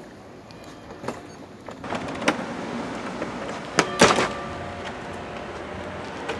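A door being handled and shut: a few sharp clicks and knocks, the loudest a double knock about four seconds in.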